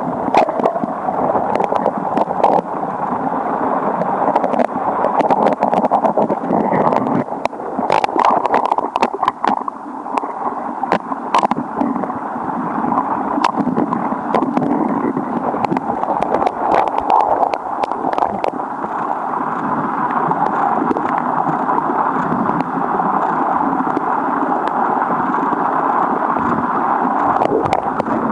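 River current rushing steadily, heard underwater, with scattered sharp clicks and knocks from a metal crevice tool and stones against bedrock. The clicks come thickest about a third of the way in.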